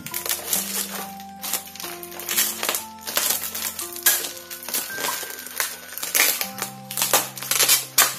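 Clear plastic air-column packaging crinkling and crackling in irregular bursts as it is handled and pulled open. Background music with sustained notes plays underneath.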